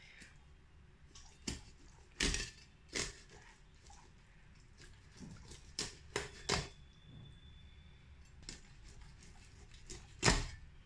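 Kitchen knife scoring a whole grass carp, the blade cutting through the flesh and knocking down onto a wooden cutting board in irregular sharp taps. The loudest knocks come about two seconds in and near the end.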